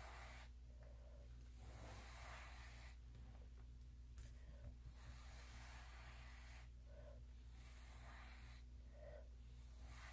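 Faint puffs of breath blown onto wet acrylic pour paint to push it out into a bloom. Each is a breathy rush about a second long, coming roughly every two seconds.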